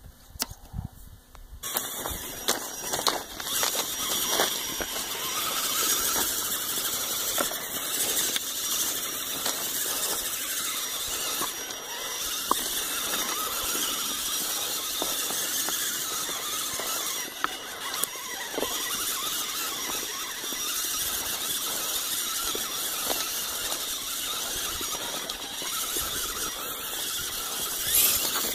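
Electric motors and gearboxes of an RC Clodbuster monster truck whining steadily as it drives through mud, starting a couple of seconds in.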